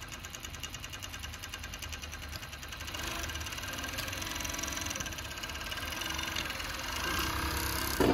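JUKI MF-7523 three-needle coverstitch industrial sewing machine running at speed as it sews binding onto fabric: a fast, even needle rattle that gets louder about three seconds in. It ends with a couple of sharp clacks.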